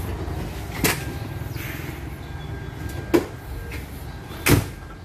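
Kia Rio's door being opened and handled: three sharp clunks, the last and loudest near the end, over a low steady rumble.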